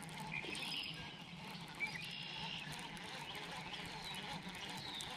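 Faint bird chirps and short thin whistled calls over a low steady hum, with one soft click a little under two seconds in.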